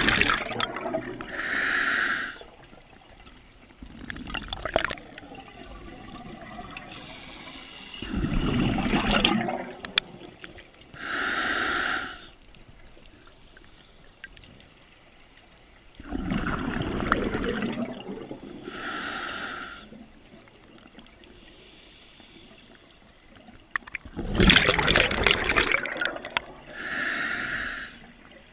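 A scuba diver breathing through a regulator: four breath cycles about eight seconds apart, each a loud gush of exhaled bubbles followed by a shorter hissing draw through the regulator.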